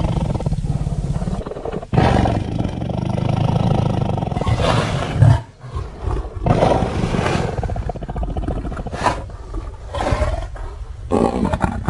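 Giant piranha monster sound effect: a string of deep roars and growls separated by short pauses, the loudest peak about five seconds in.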